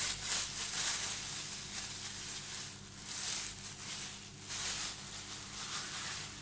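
A thin black plastic bag crinkling and rustling in irregular crackly bursts as it is twisted and tucked tight around the head as a makeshift plastic cap.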